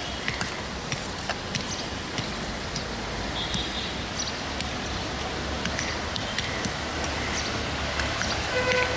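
Busy street ambience beside a railway line: a steady low rumble with scattered clicks and knocks, faint distant voices, and a few short high ringing tones. The rumble grows stronger in the second half.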